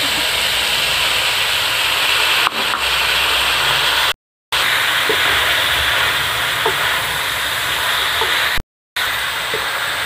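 Chicken and chopped vegetables sizzling steadily as they fry in oil in a wok, with a wooden spoon stirring now and then. The sizzle cuts out briefly twice.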